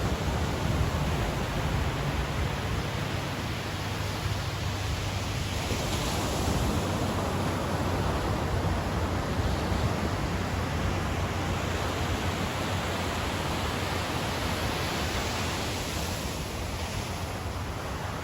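Ocean surf breaking and washing onto a beach: a continuous rushing wash that swells a little every few seconds.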